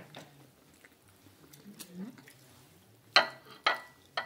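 Faint eating sounds, then three sharp clinks on a glass dipping bowl about three seconds in, each with a brief ring after it.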